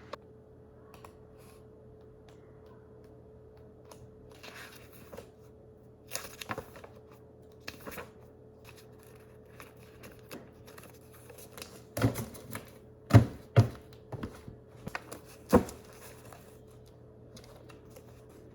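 Office desk work: scattered clicks, taps and rustles of keys and papers being handled, with a cluster of louder knocks about two thirds of the way in. A faint steady hum runs underneath.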